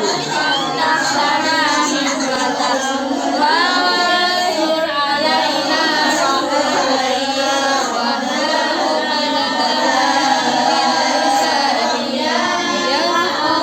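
A group of children chanting Quranic recitation together, many voices in overlapping melodic lines that rise and fall.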